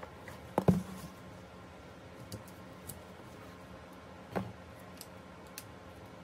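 Scattered small clicks and handling noises as a tape-wrapped package is being opened, with a sharp knock under a second in and a second knock past four seconds.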